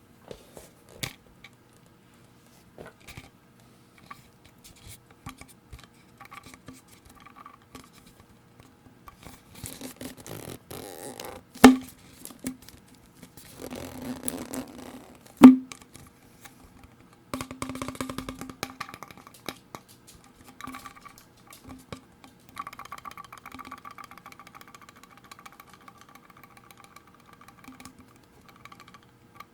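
Fingers tapping on plastic bottles and bottle caps: irregular light taps, two much sharper clicks in the middle, and stretches of rustling handling noise between them.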